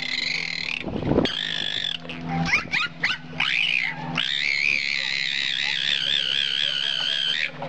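Bottlenose dolphin vocalizing with its head out of the water. It gives long wavering squeals, with a short burst about a second in and a few quick rising squeaks in the middle, before a long wavering squeal that stops shortly before the end.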